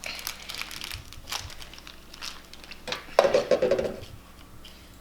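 Crinkling and clicking of slime-making supplies being handled: packets, lids and containers. About three seconds in comes a louder, brief squeaky noise.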